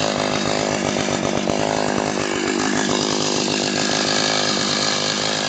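Eskimo 8-inch gas ice auger's small two-stroke engine idling steadily before it is throttled up.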